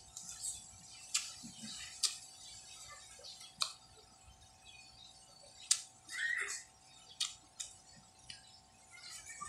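Wet mouth clicks and smacks, about one every second or so, from biting and chewing firm green-skinned mango. A faint steady tone sits underneath.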